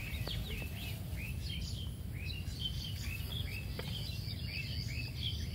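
Small birds chirping over and over, quick short notes, over a steady low background rumble, with a couple of faint knocks.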